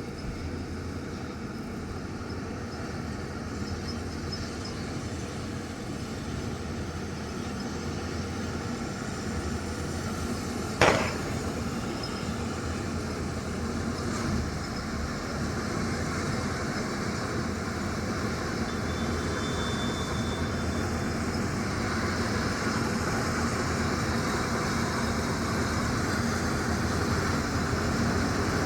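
Kartar 4000 combine harvester running while cutting crop: a continuous mechanical drone of engine and machinery that slowly grows louder, with one sharp knock about eleven seconds in and a fainter one a few seconds later.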